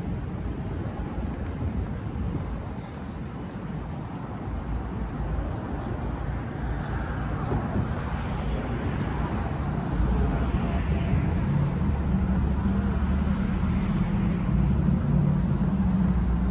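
City street traffic noise, with a vehicle engine's low rumble growing louder about ten seconds in.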